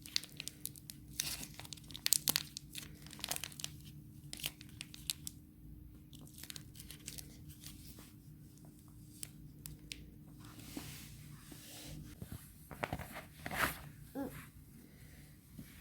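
Close crinkling, crackling and tearing handling noises from the Kinetic Sand pack being worked by hand. The noises are dense for the first several seconds, sparser in the middle and pick up again near the end, over a faint steady hum that stops about three-quarters of the way through.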